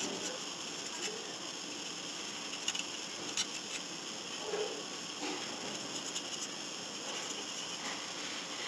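Quiet handling sounds of a plastic model kit being turned in the hands and dry-brushed: a few small clicks and taps over a steady hiss.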